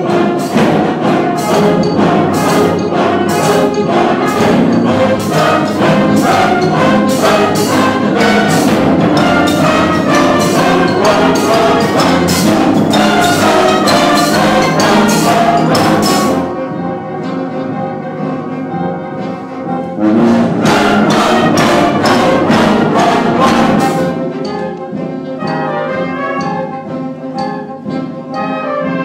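Live band music with brass and regular drum hits, a youth band backing a large amateur choir, recorded on a phone. It is loud, drops quieter a little past halfway, swells again for a few seconds, then eases off near the end.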